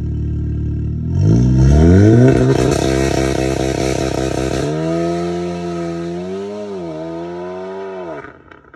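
Volkswagen Golf Mk7 R's turbocharged 2.0-litre four-cylinder through an Armytrix turbo-back valvetronic exhaust, accelerating hard away from a standstill. About a second in, the revs climb and the exhaust note is at its loudest. The note then steadies, dips briefly and fades away near the end as the car drives off.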